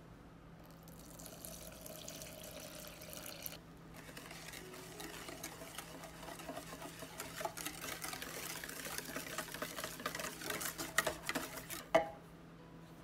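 Cooled milk and cream poured into egg-yolk custard batter in a glass bowl for the first few seconds, then a wire balloon whisk beating it, with quick clinks of the wires against the glass that grow busier and louder, and one sharp clink near the end.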